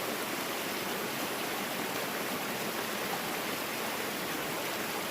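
Steady, even rush of creek water running over small waterfalls.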